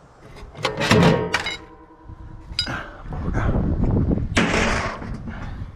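Metal clattering and clanking as scrap microwave parts are handled. A clatter about a second in leaves a piece ringing briefly, then another knock comes, followed by a longer stretch of rattling and scraping.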